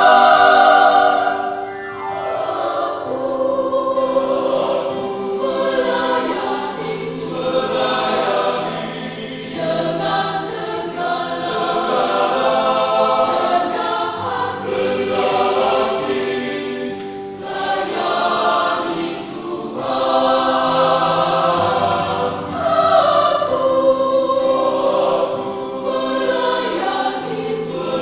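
Church choir singing in harmony, several voice parts holding long sustained chords in phrases of a few seconds.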